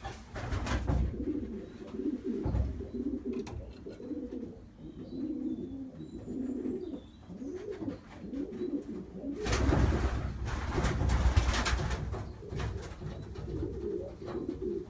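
Racing pigeon courtship cooing, with repeated low coos throughout. A louder stretch of rustling noise comes about two-thirds of the way in.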